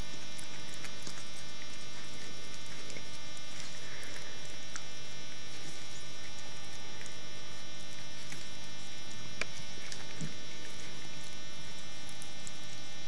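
Steady electrical hum, even in level throughout, with a few faint ticks and soft rustles over it.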